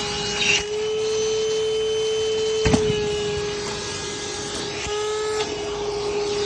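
Wet/dry shop vacuum running steadily, sucking out an air conditioner's condensate drain line, its motor hum dipping slightly as the suction load changes; a sharp knock a little before the middle.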